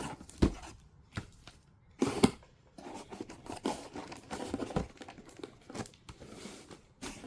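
Shrink-wrapped vinyl LP records being handled and shuffled into order: plastic crinkling and rustling with scattered knocks, the loudest a little after two seconds in.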